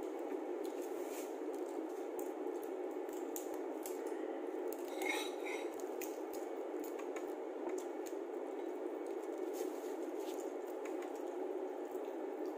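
Crab and shrimp being pulled apart by hand and eaten: many small wet squishes and sharp shell clicks over a steady background hiss, with a brief high-pitched squeak about five seconds in.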